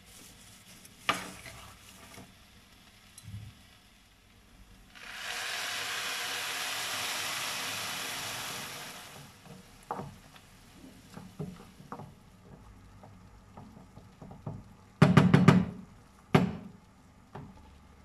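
Turmeric rice and chickpeas sizzling in a granite-coated frying pan, a steady hiss lasting about four seconds. A spatula then stirs and scrapes through the rice, and near the end there is a quick run of loud knocks of the spatula against the pan.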